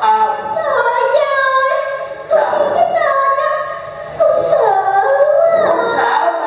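A single voice singing drawn-out phrases in Vietnamese traditional opera style, each phrase sliding down in pitch, with short breaks about two and four seconds in.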